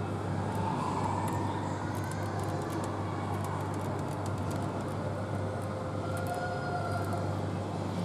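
Steady low hum and background noise of a supermarket, with faint, scattered light clicks of long acrylic nails tapping.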